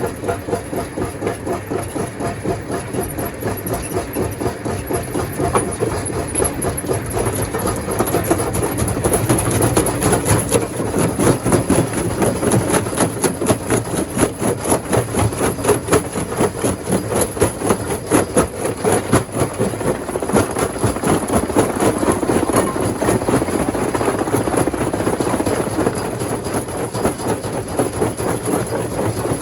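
Rock crusher machine running and breaking stone, a dense, rapid rattle that grows somewhat louder about eight seconds in.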